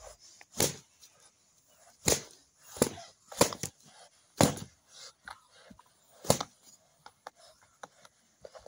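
Muscovy drake striking with its wings at a rooster pinned beneath it. About six sharp whacks come at uneven intervals over the first six or so seconds, with lighter scuffling knocks between them.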